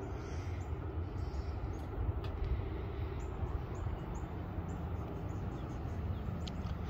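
Low steady rumble, with a few faint, quick high-pitched dings from the grade crossing's warning bell.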